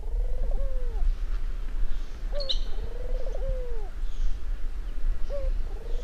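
Ringneck 'laughing' turtle dove cooing: a rolling, bubbling coo repeated about every three seconds, each a short note followed by a rapid trilled coo that falls away at the end. A brief high squeak near the middle.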